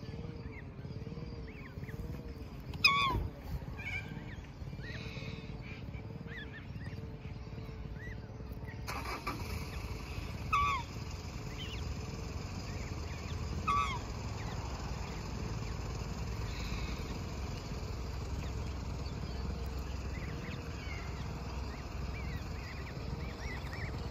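Black swan giving a short call three times, about three, ten and a half and fourteen seconds in, with faint high peeping from its cygnets throughout, over a steady low rumble.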